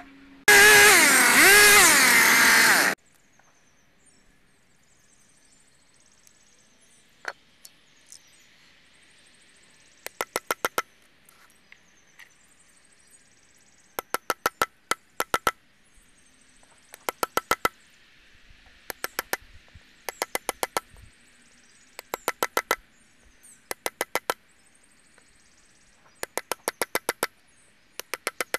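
A chainsaw revs loudly for about two and a half seconds near the start and stops. Then a claw hammer strikes a chisel into a red oak slab in quick runs of four to six sharp taps, a run every two or three seconds.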